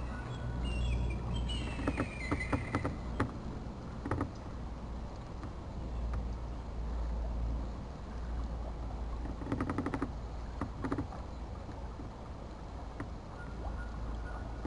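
Outdoor ambience on a river: wind rumbling on the microphone, with birds chirping in the first few seconds. A few sharp knocks or clicks come through, with a quick run of them about ten seconds in.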